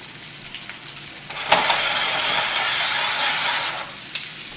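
Chicken pieces sizzling in a hot skillet. About a second and a half in, the sizzle jumps suddenly to a loud hiss for a couple of seconds, then drops back to a low sizzle.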